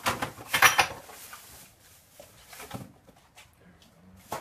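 A quick burst of clattering knocks in the first second, then a couple of lighter knocks later on.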